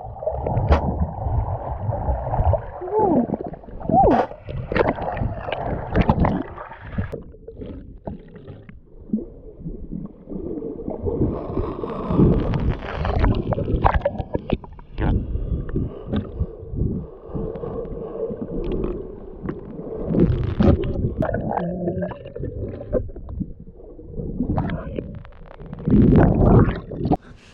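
Muffled water sloshing and gurgling heard through an action camera's waterproof housing held underwater, in uneven surges with scattered knocks.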